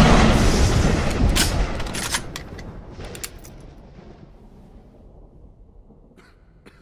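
A Tyrannosaurus rex roar sound effect, loud at first, then dying away with echo over about four seconds, with a few sharp clicks as it fades.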